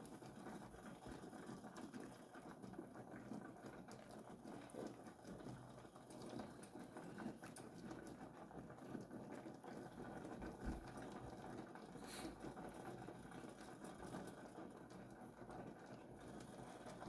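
Pot of water boiling with dumplings in it: faint, steady bubbling, with one light knock about twelve seconds in.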